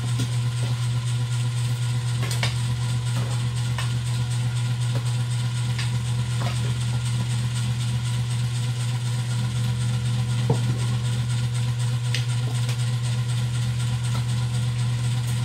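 A steady low mechanical hum, with a few short, light clinks of cutlery on dishes scattered through it.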